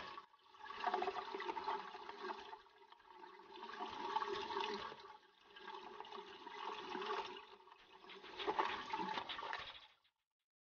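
Water rushing through a Kohler concealed cistern, in four surges about two seconds apart. It cuts off suddenly near the end.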